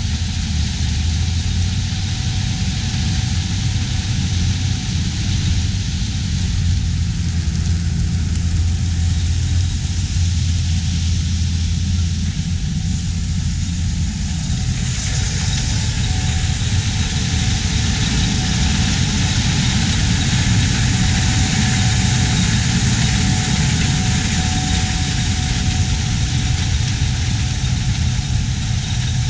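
Diesel engine of large harvest machinery running steadily with a low hum. About halfway through, the sound changes and more hiss comes in over the engine.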